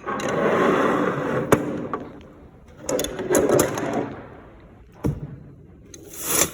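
Rustling and clattering from pliers being handled, with a few sharp clicks, one about a second and a half in and another about five seconds in, and a short scrape near the end.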